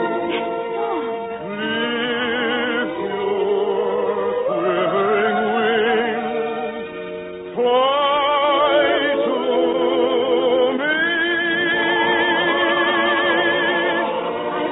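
Operetta music: voices singing long notes with vibrato over orchestral accompaniment, in a narrow-band 1952 radio broadcast recording. The music dips briefly a little past halfway, then comes back in louder.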